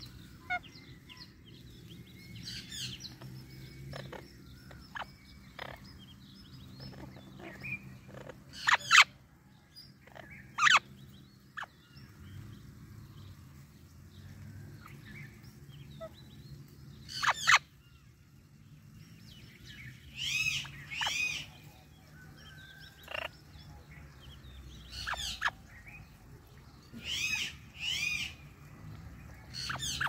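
Parrot calls from an Indian ringneck parakeet and an Amazon parrot: loud, short squawks and whistled notes scattered through, several in quick pairs.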